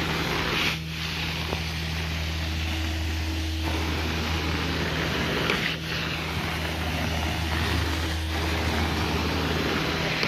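Carpet-cleaning extraction wand drawing air and water through the vacuum hose in steady strokes across the carpet, over the constant low hum of the cleaning machine. The hiss breaks off briefly three times where the wand is lifted between passes.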